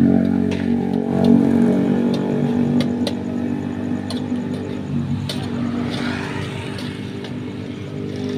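An engine runs steadily and slowly fades. Sharp metallic clicks from a spatula on the wok come through now and then.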